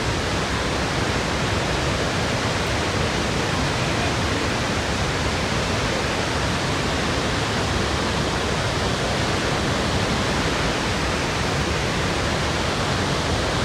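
Victoria Falls, where the Zambezi River plunges into its gorge: a loud, steady roar of falling water.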